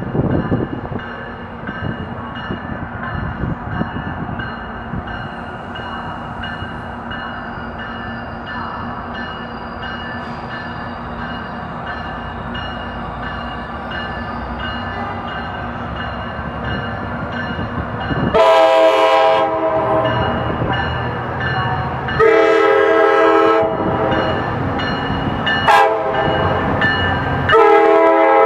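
A Tri-Rail commuter train rumbling as it rolls along the platform, then a train air horn sounds four blasts, long, long, short, long, starting about two-thirds of the way in: the standard grade-crossing warning signal.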